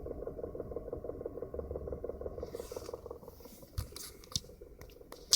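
BMW F30 320i engine idling with a fast, even ticking knock, the knock the owner hears at idle once the engine is warm. It fades about halfway through, giving way to scraping and a few sharp clicks near the end.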